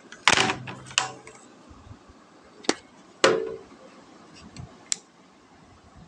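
Handling noise: a few separate knocks and clatters as a plastic bottle of gel beads and a cardboard toy box are moved about and set down on a glass tabletop, the loudest about half a second and a little over three seconds in.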